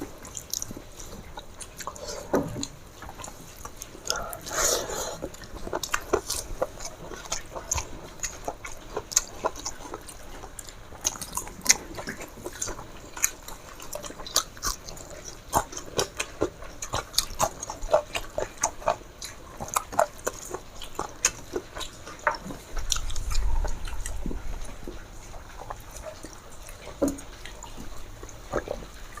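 Close-up eating sounds: chewing and wet, irregular mouth smacks and clicks of rice and chicken curry being eaten, with a brief low rumble about two-thirds of the way in.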